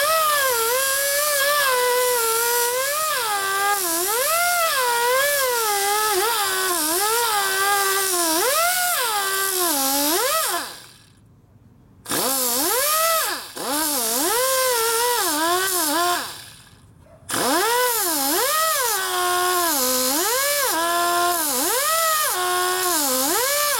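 Small right-angle die grinder with a medium-grit flap disc grinding the teeth of a steel kick-starter gear, deburring and rounding off their sharp edges. Its whine rises and falls in pitch as the disc is pressed onto each tooth and eased off. It stops for about a second near the middle and again a few seconds later, then starts up again each time.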